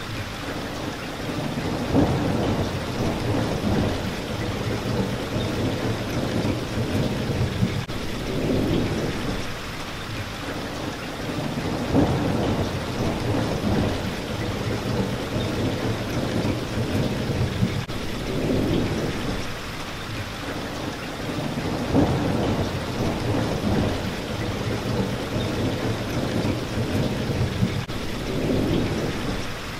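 Steady heavy rain hitting a window, with a deep rumble swelling up and fading away several times, the pattern recurring about every ten seconds.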